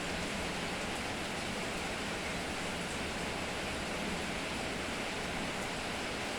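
Steady rain falling, an even unbroken hiss with faint scattered ticks of drops.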